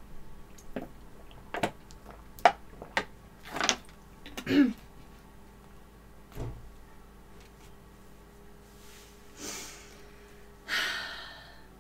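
Gulping and swallowing while drinking from a plastic water bottle, a series of short wet clicks, then a soft low thump as the bottle is handled. Two short breathy rushes follow near the end.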